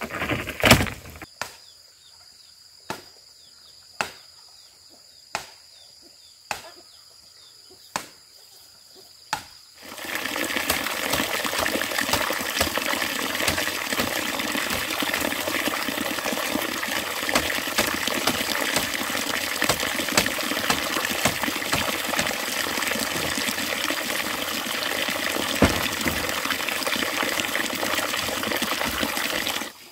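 Sharp single knocks about once every second and a bit, then, from about ten seconds in, a steady loud rush of running water.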